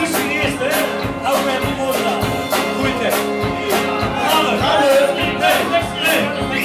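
Live band performing: electric guitars over a steady beat, with voices singing along into microphones.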